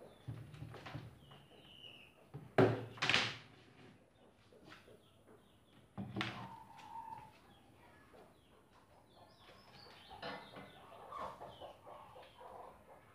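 Knocks and clatter of tools and steel bar clamps being handled on a plywood workbench, the loudest clatter about three seconds in, with chickens clucking in the background.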